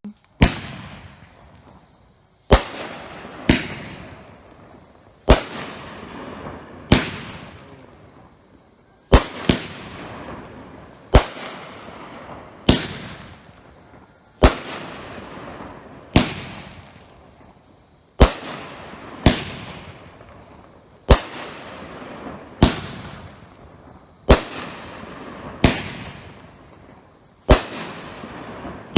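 500-gram consumer firework cake, Black Market Fireworks' Dapper Dan, firing brocade crown and peony shots one after another. A sharp bang comes every one and a half to two seconds, and each fades out in a short rumbling tail.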